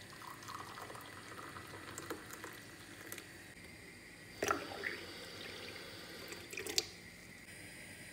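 Water poured from a kettle into a glass tumbler, followed by two sharp knocks, about halfway through and near the end.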